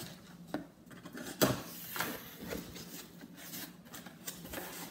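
Cardboard shipping box being opened by hand: its flaps are pulled up with rubbing and scraping, and a string of small knocks, the loudest a sharp knock about a second and a half in.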